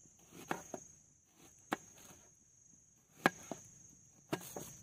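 Kitchen knife slicing through an onion and knocking on a plastic cutting board: about six short, sharp chops, the loudest a little over three seconds in.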